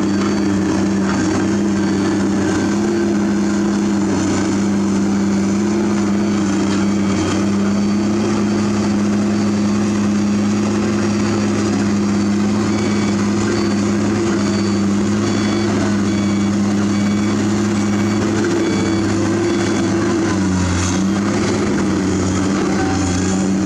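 Komatsu PC200 hydraulic excavator's diesel engine running steadily as the machine digs out logs and mud, its pitch dipping briefly about twenty seconds in.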